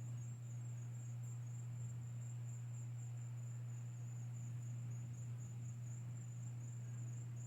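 Crickets singing in a continuous high, finely pulsing trill, over a steady low hum.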